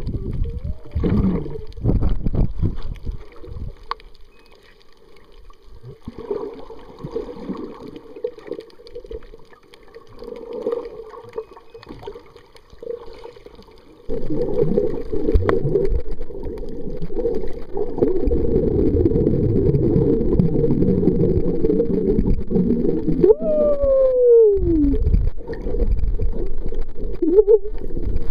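Muffled water sloshing and bubbling heard with the microphone underwater, softer at first and louder from about halfway. Near the end comes one long falling call.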